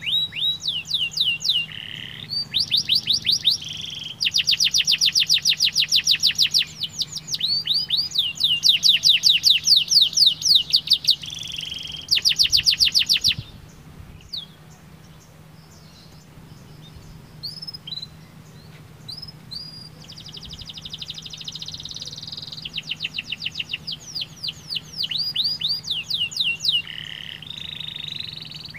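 Domestic canary singing: long, rapid trills of repeated falling whistled sweeps, broken about halfway by a pause of several seconds with only a few scattered single notes, then the trills start again. A faint steady low hum lies underneath.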